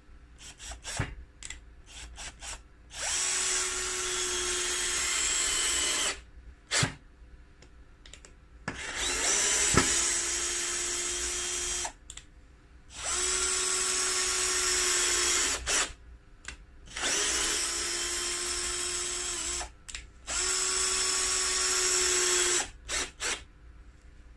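KIMO 20V MAX cordless drill driver driving screws in five separate runs of about three seconds each. Its motor runs at a steady pitch on each run, with short clicks between runs.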